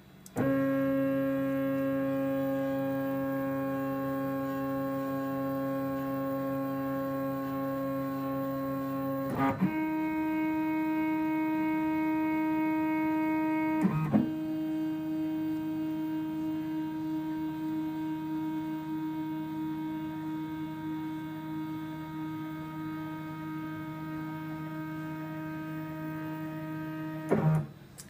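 Stepper motors of a CNC-converted Sieg X2 mini mill driving its axes through a homing run: a steady pitched whine that changes pitch with a brief click about a third of the way in and again about halfway, then stops just before the end. Each change marks one axis reaching its limit switch and the next axis starting to move.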